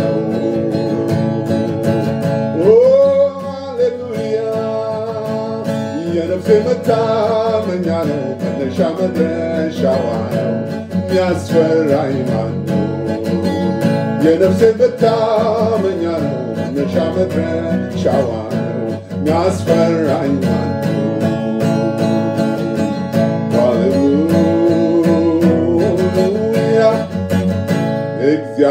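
A man singing an Amharic gospel praise song to acoustic guitar accompaniment, the voice gliding over steady strummed chords.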